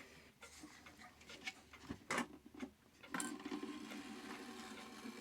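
Light metallic clicks and taps from handling the hands and movement of a Herschede clock, followed about three seconds in by a steady running sound from the clock.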